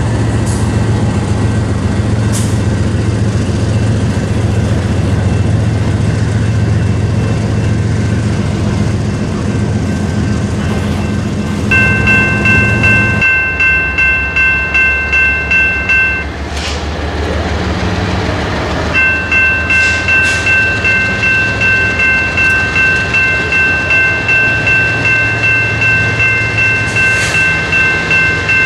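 Diesel freight train passing with a steady low engine rumble; about twelve seconds in, a diesel locomotive's air horn sounds a chord of several notes, a blast of about four seconds, then after a short break a long blast held on, with a regular pulsing beat under it.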